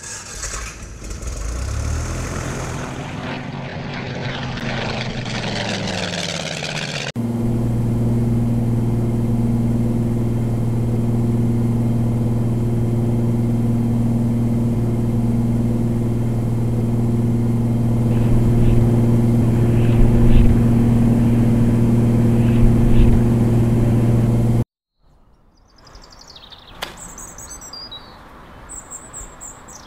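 A light aircraft's piston engine and propeller spin up with rising pitch, then run as a loud, steady drone heard from the cockpit. The drone cuts off about 25 seconds in. Birds chirp outdoors after that, and there is a single soft thump near the end.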